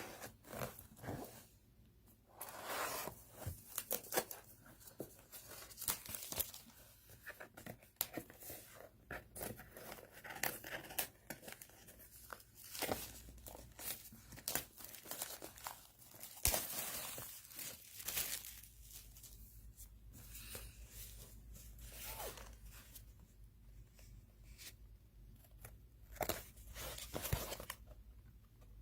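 Plastic shrink wrap being torn and peeled off a product box: irregular crinkling and tearing with small clicks, on and off throughout.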